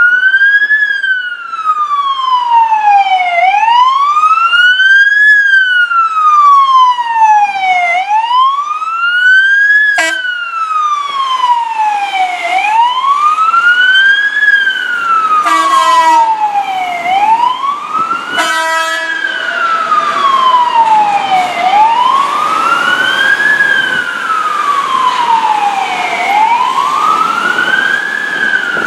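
Fire engine siren wailing, its pitch rising and falling slowly, one cycle about every four and a half seconds. Two short horn blasts come in about halfway through.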